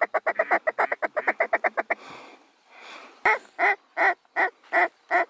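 Mallard duck call blown close by, working circling ducks: a fast chattering feed call for about two seconds, then six loud, evenly spaced quacks near the end.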